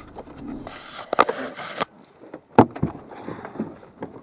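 A vehicle's engine hum dies away within the first second, followed by a scraping rattle lasting about a second and then a run of sharp clunks and knocks, the loudest just past halfway.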